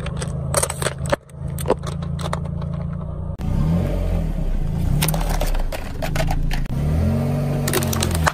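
Car engine running with a steady low hum as the car creeps forward and its tyre crushes small objects, giving a series of sharp cracks and crunches. The sound changes abruptly a couple of times where the shots are cut together.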